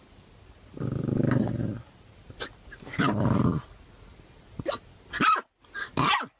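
Puppy growling twice, each a low grumble of about a second, then several short high yips and a small bark near the end.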